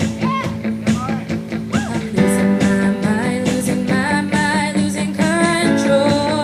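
Rock song with guitar and a sung vocal line over a sustained low accompaniment.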